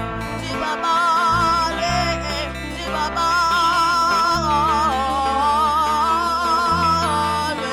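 Live music: a woman singing long, held notes with a wide vibrato over low bass notes that shift every second or two.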